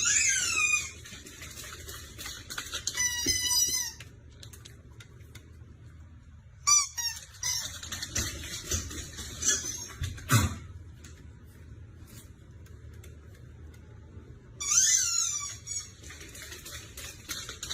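A small animal's high-pitched, falling calls in three short bouts of about a second each, with a single thump near the middle and faint clicks in between.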